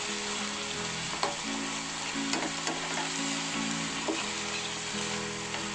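Chicken liver and gizzard stir-fry sizzling in a little water and sweet soy sauce in a metal wok as a spatula stirs it, with a few clicks of the spatula against the pan about one, two and four seconds in.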